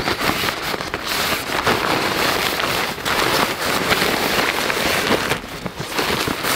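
Hammock fabric and its stuff sack rustling and crinkling as hands pull and handle them, a dense run of irregular crackles.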